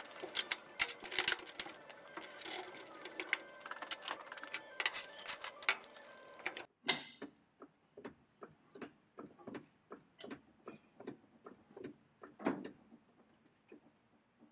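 A dense, fast clatter of clicks over a steady hum that cuts off suddenly about seven seconds in. Then a hydraulic trolley jack is pumped to lift a rear axle, with sharp clicks about twice a second and one louder clack near the end.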